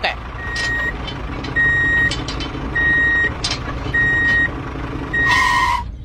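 Vehicle reversing alarm beeping five times at an even pace, one steady tone each, over a steady low engine rumble. A short burst of hiss with a lower tone comes near the end.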